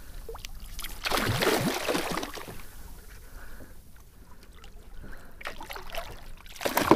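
Water splashing as a hooked bonito thrashes at the surface beside a kayak, in bursts: a loud one about a second in and another near the end.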